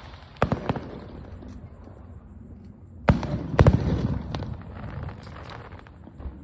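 Aerial firework shells bursting: two sharp bangs about half a second in, then a cluster of louder bangs from about three to four and a half seconds in, each trailing off in a rumbling echo.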